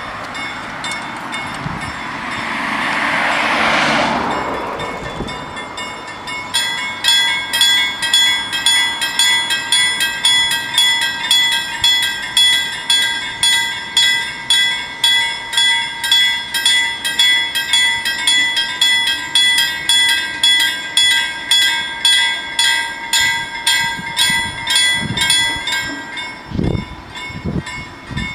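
Level-crossing warning bells ringing rapidly and evenly, about two strikes a second, as the crossing's red lights flash and the barriers come down. They start about six seconds in and stop a couple of seconds before the end, followed by a few low knocks. Before the bells, a road vehicle passes.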